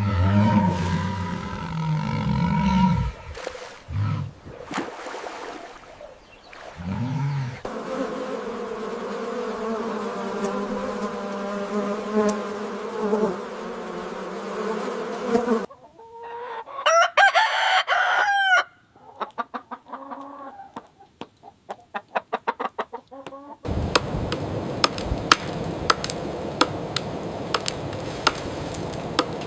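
Chickens: a rooster crows once for about two seconds, a little past the middle, followed by a run of short clucks. Before it, a long steady drone; after it, a noisy stretch with sharp ticks.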